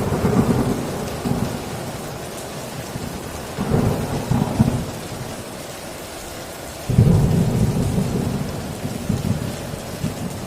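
Torrential rain drumming steadily on a tin roof, with rolls of thunder: one fading at the start, another about four seconds in, and a sudden louder peal about seven seconds in that rumbles on.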